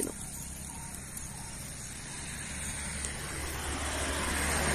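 A motor vehicle approaching on the road, its road noise growing gradually louder through the second half, over a steady low rumble.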